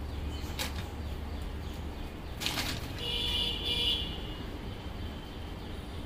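Low, steady rumble of city traffic. A brief harsh noise comes about two and a half seconds in, followed by a high, held tone lasting just over a second.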